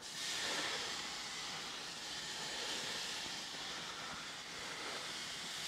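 Halibut fillets sizzling on the oiled, high-heat grates of a Napoleon Prestige Pro 500 gas grill running at about 600 degrees: a steady hiss that starts suddenly as the first piece goes down.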